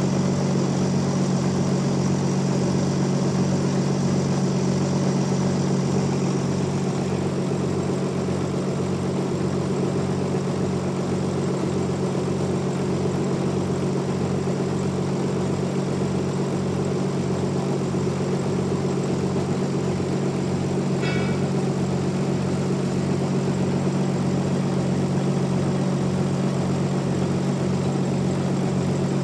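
Band sawmill machinery running with a steady hum and a regular low throb. A brief faint high squeak comes about two-thirds of the way through.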